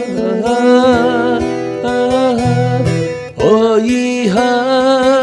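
Acoustic guitar playing a slow trot song, picking out the melody over the chords, with a man singing along in long, wavering held notes; a new phrase starts about two thirds of the way through.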